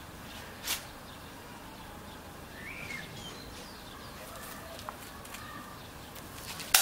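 Spring-powered airsoft guns firing in a lull: a sharp crack about a second in and a louder one near the end, over quiet outdoor background with a faint bird chirp in between.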